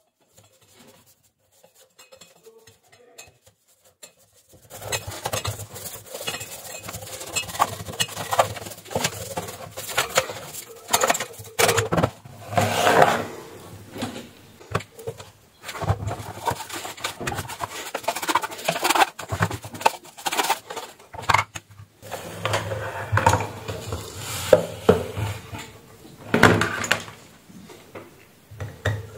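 Irregular rubbing, scraping and clattering of an insect killer's plastic housing and wire grid being handled and taken apart, starting about five seconds in.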